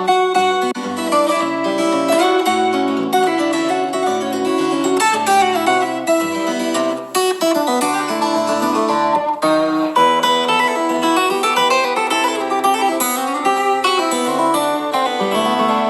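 Background music led by plucked acoustic guitar, changing notes throughout.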